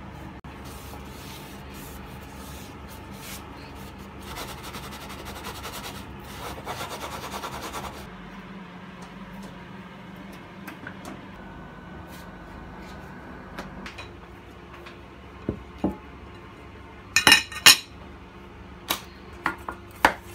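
A silicone spatula scraping and smoothing batter in a metal springform pan, with a rapid rubbing rattle for a few seconds. Near the end come a string of sharp knocks from the metal pan being handled, the loudest a close pair about three seconds before the end.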